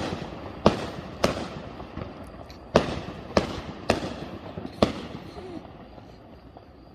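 Fireworks going off: a string of about seven sharp bangs over the first five seconds, each trailing off in a fading rumble, then growing quieter.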